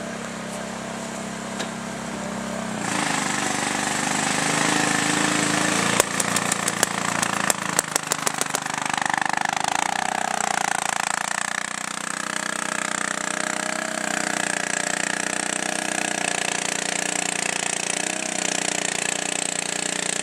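Paintball markers firing a rapid burst of shots, roughly eight to ten a second, for about two seconds starting around six seconds in, over a steady hiss.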